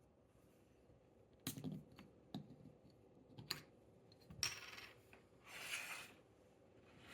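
A few sharp glassy clinks and clicks, then two short rushes of hiss, about four and a half and five and a half seconds in: the sounds of handling and opening a bottle of soda.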